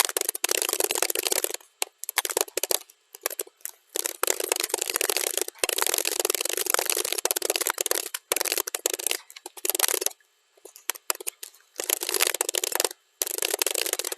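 Computer keyboard being typed on fast, sped up to double speed: continuous runs of rapid key clicks broken by several brief pauses.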